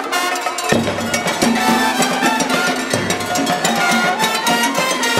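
Cuban comparsa conga band playing: bass drums and hand drums under a driving beat of struck metal like a cowbell, with trumpets over it. The deep drums come in strongly about a second in.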